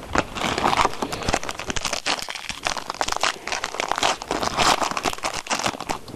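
Crinkling of a foil trading-card pack wrapper being handled and opened, with irregular rustling and small clicks throughout.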